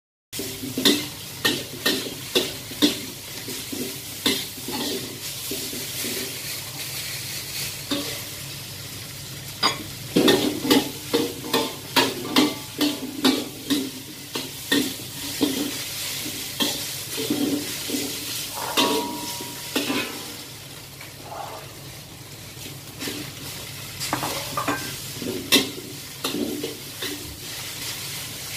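Metal spatula scraping and clanking against a wok as noodles are stir-fried, the strokes coming in quick irregular runs, busiest around the middle. Under them the noodles sizzle steadily in the hot oil.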